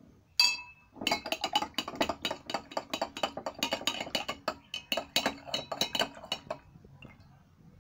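Glass stirring rod clinking against the inside of a glass beaker as a hydrochloric acid solution is stirred to mix in added concentrated acid. One ringing tap about half a second in, then rapid clinks, several a second, which stop about a second before the end.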